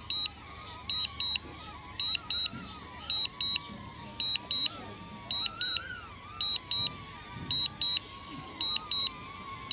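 Double warning beeps from the DJI Fly controller app, a pair of short high beeps about once a second, sounding while the DJI Neo is on an automatic return-to-home triggered by a strong-wind warning.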